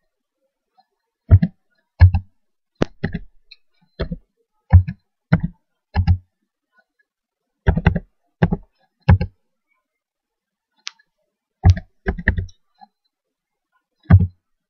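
Computer keyboard keys struck one at a time, about fifteen separate keystrokes at an uneven pace with two short pauses, typing in a long number digit by digit.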